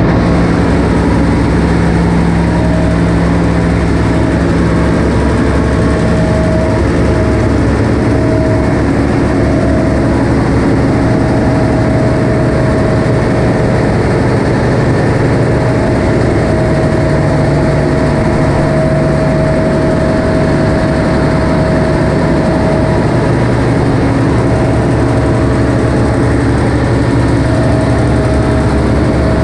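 Large marine diesel engine running steadily in a ship's engine room, a loud, dense, even drone. A higher whine fades in and out over it.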